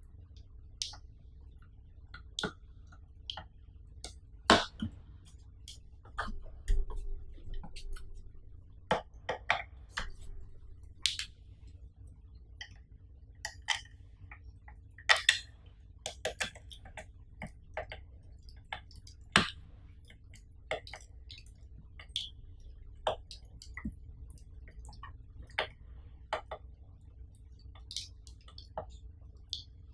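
Irregular sharp clicks and taps of hard plastic as the TV's stand legs are handled and fitted into its base, about one a second, with a louder knock about four seconds in and a cluster around fifteen seconds.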